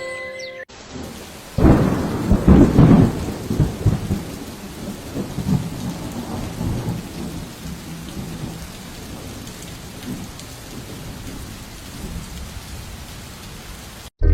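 A thunderclap about a second and a half in, cracking and then rumbling away over several seconds, over steady falling rain.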